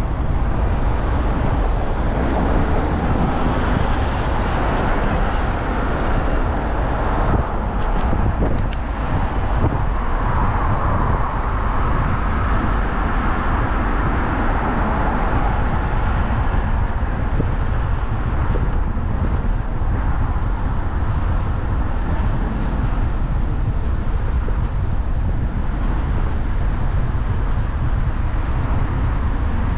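City street traffic, with cars and a double-decker bus running along the road, heard from a moving bicycle, over a steady low rumble.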